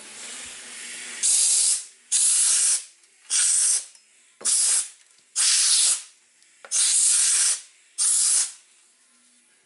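Compressed-air blow gun with a long nozzle blowing debris off the top of a fuel tank. A softer hiss at first, then seven short, loud blasts of air, each under a second.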